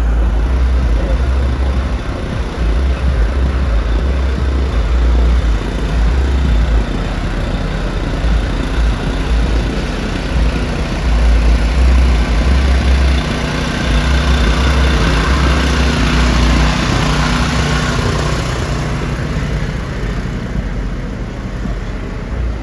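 A car engine running, with a deep low rumble that swells and fades.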